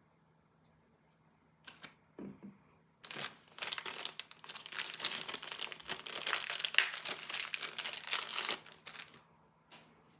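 A few light knocks, then thin clear plastic bag packaging crinkling and rustling for about six seconds as a small toy elephant figure is worked out of it by hand.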